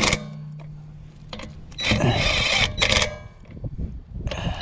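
Impact wrench tightening wheel lug bolts in short bursts: one just ending at the start, a longer burst about two seconds in and a brief one near three seconds.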